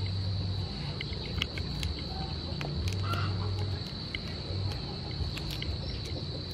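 Fingers cracking and peeling the shell off a cooked river prawn, with scattered small clicks and cracks, over a steady high-pitched buzz.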